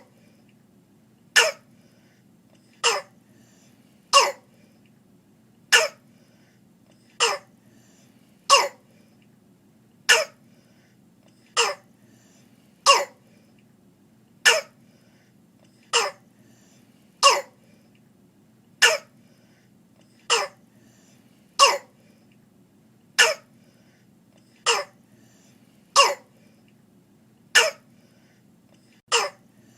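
Barking cough of croup: single harsh coughs repeating evenly, about one every second and a half, over a faint steady background hiss. The barking quality is the sign of croup's swollen upper airway.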